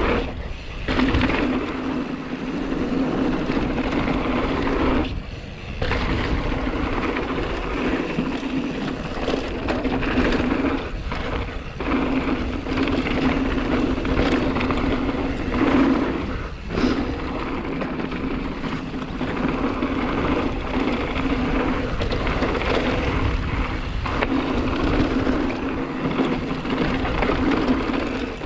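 Hardtail mountain bike riding fast down a dirt trail: continuous tyre and riding noise with wind on the action-camera microphone. A steady low buzz runs under it and drops out briefly a few times.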